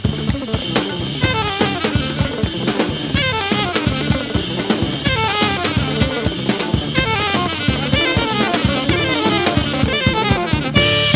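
Live band music driven by a busy drum kit of kick, snare and hi-hat over bass and pitched melodic lines, ending on one loud final accented hit near the end.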